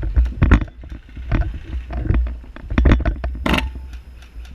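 Footsteps thudding on dirt every half second or so over a steady low rumble, with one sharp crack about three and a half seconds in.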